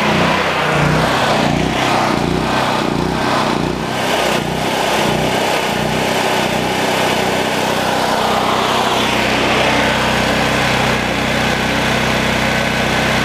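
PowerMax XP8500E portable generator's single-cylinder engine running close by, wavering for the first few seconds and then holding a steady drone.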